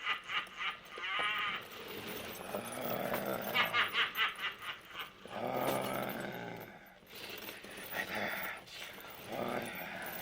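Halloween sound-effects recording of eerie vocal cries: several bursts of rapid, pulsing cackle-like cries, with longer animal-like wailing calls between them.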